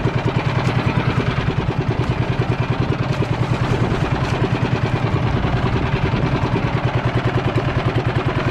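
Small engine running steadily at low speed, with a fast, even chugging pulse of about eight to ten beats a second.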